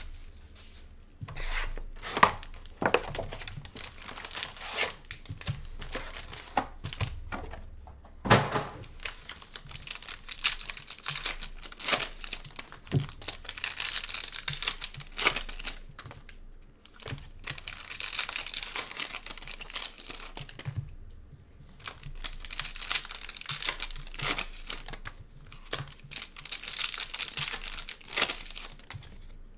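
Gloved hands tearing open Panini Mosaic football card packs, their plastic wrappers crackling and crinkling in several long stretches. Sharp taps and clicks come in the first several seconds as the packs are handled.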